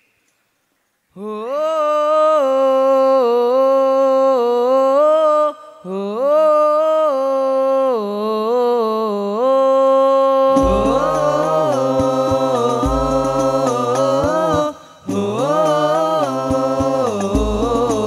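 A male lead singer sings a sholawat phrase alone, unaccompanied, in long held notes with wavering ornaments. About ten seconds in, the group's rebana frame drums and further voices come in with low drum beats under the singing.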